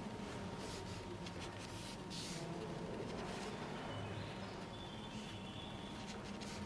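Faint pencil strokes on fine-grain watercolour paper during sketching, over a steady low room hum. A few faint high chirps come in the middle.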